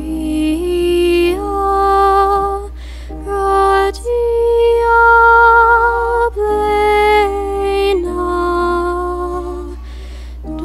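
Slow church hymn music: a melody of long held notes with vibrato over a lower sustained accompanying line.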